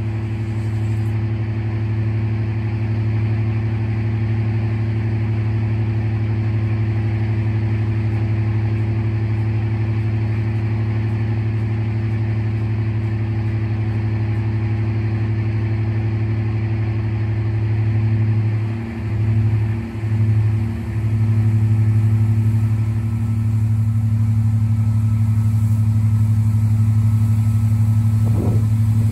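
Class 55 Deltic diesel locomotive Alycidon's twin Napier Deltic two-stroke engines idling with a loud, steady deep drone. The sound dips briefly a few times about two-thirds of the way through.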